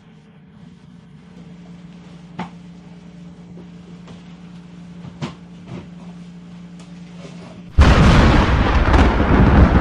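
A faint steady hum with a few sharp clicks, then, near the end, a sudden loud rushing rumble that starts abruptly and keeps going.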